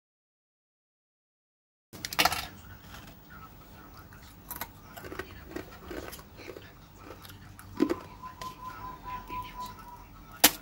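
Thin, crisp baked crêpes crackling and snapping as hands flex them and break pieces off, with sharp cracks over a light rustle; the crackle is the sign that they are very crispy. Silence for about the first two seconds, and a faint steady tone for a couple of seconds near the end.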